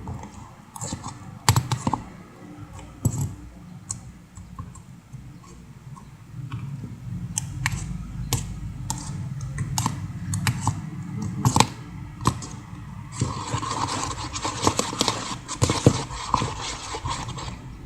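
Slime mixture being stirred in its container: irregular clicks and scrapes of the stirrer against the container, thickening into a busier stretch of scraping a few seconds before the end.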